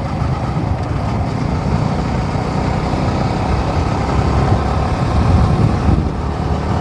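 Steady road noise while riding a Yamaha R15 V4 motorcycle in traffic: the engine running at a steady pace with a low rumble of wind and tyres.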